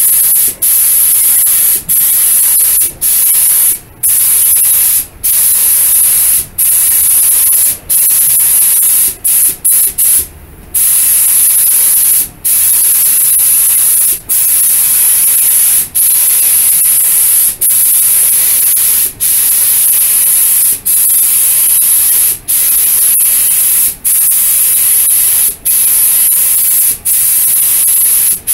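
Gravity-feed air spray gun hissing as base coat paint is sprayed onto a plastic bumper, the loud hiss breaking off briefly about every one and a half seconds between passes.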